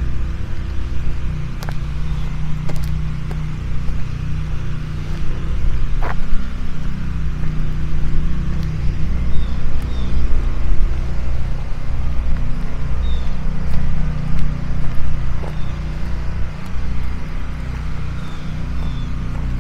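A steady low engine hum, with faint short high chirps and a few light clicks over it.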